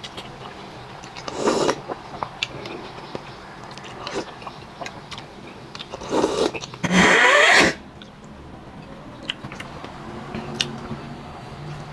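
Close-up mukbang eating sounds: a person chewing and biting into bulalo, beef shank soup, with many small mouth clicks. There is a short louder burst about one and a half seconds in, and a loud rushing burst lasting under a second about seven seconds in.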